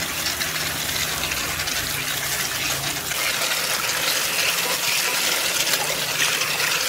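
Tap water gushing steadily into a stainless steel bowl of spinach leaves while hands swish the leaves around to wash them.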